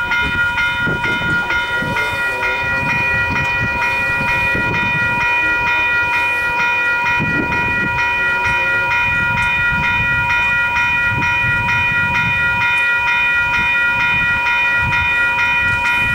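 Level crossing warning bells ringing without a break on several fixed pitches, the sign that the crossing is active for an approaching train. Under the ringing there is an uneven low rumble.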